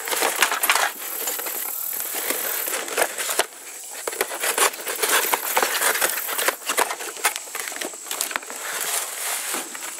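Cardboard shipping box being ripped open by hand: a dense, irregular run of crackling tears and rustles, with sharp snaps as the flaps give way.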